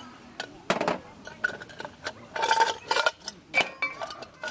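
Stainless-steel camp cookware and utensils clinking and knocking together, a quick irregular string of metal knocks, some ringing briefly.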